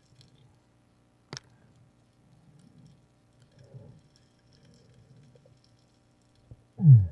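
Muffled underwater sound through a waterproof camera housing during a night dive: faint scattered clicks and knocks, with one sharp click about a second and a half in. Near the end comes a short, loud sound that slides down in pitch.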